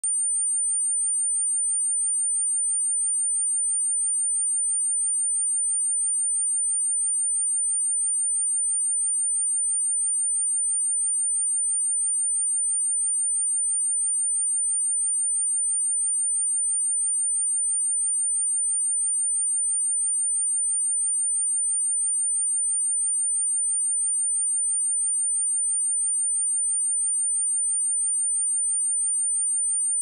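Steady 9003 Hz sine-wave test tone: one unbroken, high-pitched pure tone that does not change.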